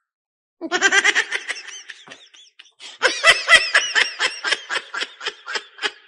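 A person laughing hard in rapid ha-ha-ha pulses, in two long runs: one starting about half a second in, and another from about three seconds in.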